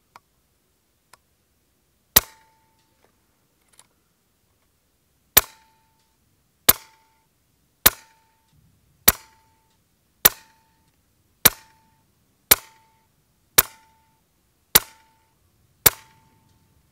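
Daystate Red Wolf .22 PCP air rifle firing eleven slug shots. One comes about two seconds in, then after a pause ten more follow at just over a second apart. Each sharp shot is followed by a brief ringing tone.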